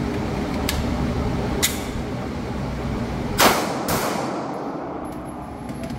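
Two sharp clicks of a magazine being seated in a Bul Armory Axe C pistol, then two pistol shots about half a second apart, the first the loudest, over a steady background hum.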